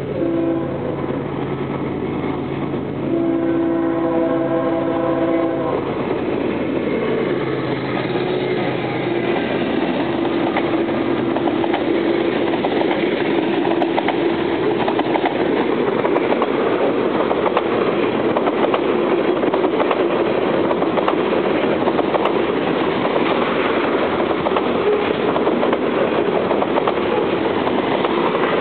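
Freight locomotive horn sounding a short blast and then a longer one a few seconds in. A long train of covered hopper cars then rolls by close at hand, the wheels clattering over the rail joints in a steady, dense rumble that builds a little.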